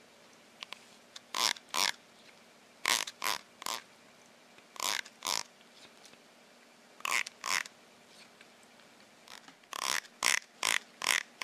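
Teeth of a plastic comb being strummed: short raspy zips, mostly in pairs, with a run of four or five near the end, while a cat licks and chews at the comb in reaction.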